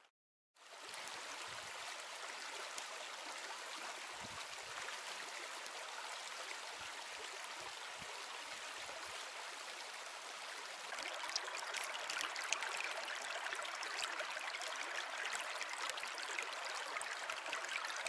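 Small forest creek running over rocks, a steady rush and babble of water that gets louder about two-thirds of the way through.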